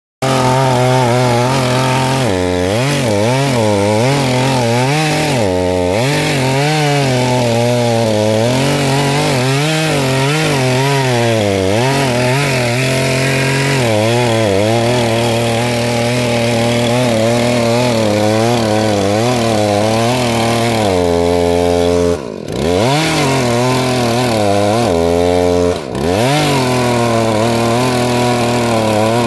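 ZimAni 450 two-stroke chainsaw running at high throttle while cutting into the base of a standing tree trunk, its engine pitch rising and falling as the chain bogs and frees under load. Twice near the end the engine briefly drops off and then picks back up.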